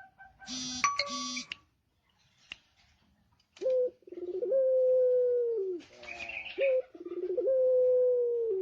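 Male puter pelung (Barbary dove) cooing in its long drawn-out 'ngelik' style: two long level coos, each opening with a short note and falling away at the end. A brief burst of high chirping comes about a second in.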